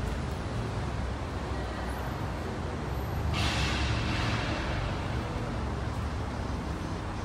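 Steady low vehicle rumble. About three and a half seconds in, a hiss starts suddenly and fades away over a couple of seconds.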